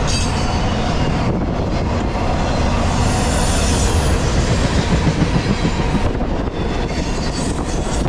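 Norfolk Southern intermodal freight train's double-stack container cars rolling past: a loud, steady rumble and clatter of steel wheels on the rails, with a faint high squeal from the wheels.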